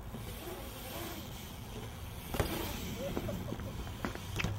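BMX bike riding a concrete bowl: tyres rolling on the concrete, with a sharp knock from the bike about halfway through and a few more clicks near the end.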